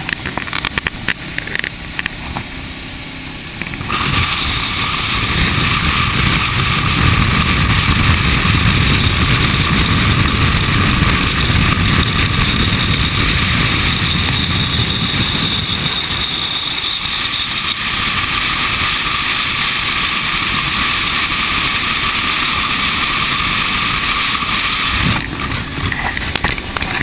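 Motorcycle riding at highway speed, heard from the rider's seat: a steady rush of wind over the camera microphone with a low engine and road rumble beneath. It is quieter for the first few seconds, grows much louder about four seconds in, and drops back near the end.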